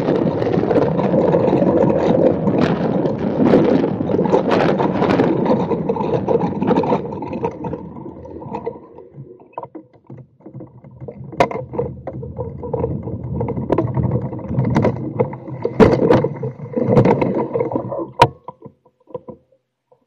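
Gravity soapbox kart's wheels and chassis rumbling on a tarmac lane as it rolls downhill, with no engine. The rumble eases off about eight seconds in, then returns rougher with sharp knocks and rattles before dying away near the end as the kart slows.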